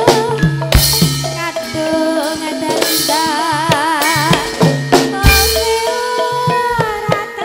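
Javanese gamelan music for tayub dance: drum strokes, held ringing metallophone notes, and a woman singing with a wavering vibrato. A deep heavy stroke comes about five seconds in.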